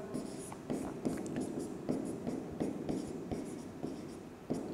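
Writing on a board: a run of short scratchy pen strokes, roughly two to three a second, with a slightly louder stroke near the end.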